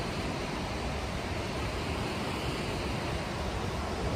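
Steady wash of ocean surf with wind rumbling on the microphone.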